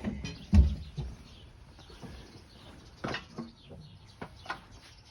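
A person climbing down out of a skid loader: one heavy thump about half a second in, then a few scattered knocks and clunks. Faint bird chirps sound behind them.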